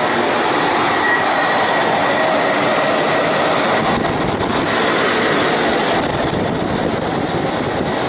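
A running 1985 Carrier Round 5-ton air-conditioner condensing unit: its outdoor fan and compressor make a steady rushing hum with a faint whine over it.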